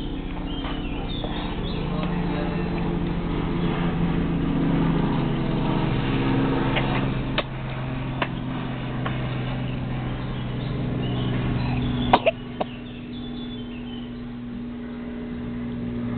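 Airplane flying overhead: a steady engine drone of several held low tones, swelling to its loudest around five seconds in and easing off later. A few short clicks and one sharp knock about twelve seconds in.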